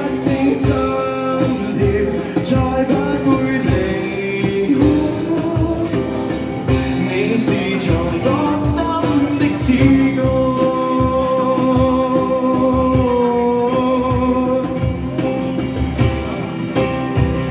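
Live band playing a Cantonese pop ballad: a steady drum beat under a held melody line with vibrato, which is strongest from about ten seconds in.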